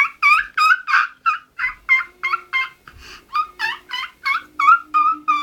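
A rapid, even string of high-pitched gobbling calls, about three a second, like a turkey's gobble.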